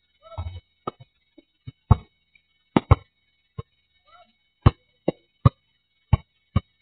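Basketball bouncing on an outdoor asphalt court: a dozen or so sharp thumping bounces at an uneven pace, as in dribbling, with a short rattling knock about half a second in.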